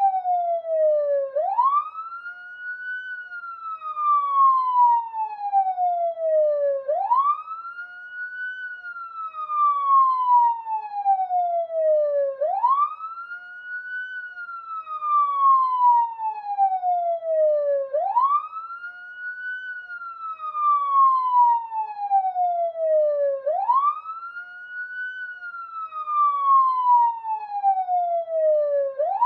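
Police siren wailing: a long wail that rises quickly in pitch, then falls slowly, repeating about every five and a half seconds.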